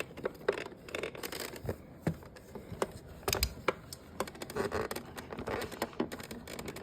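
Small plastic parts of a Samsung refrigerator's water dispenser lever clicking and scraping irregularly as they are worked into place by hand.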